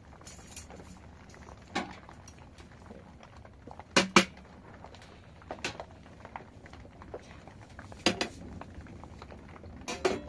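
Metal clanks and scrapes from a sheet-metal drum stove as its door panel and a metal shovel are handled at the firebox. About half a dozen sharp knocks come a second or two apart, the loudest a double knock about four seconds in.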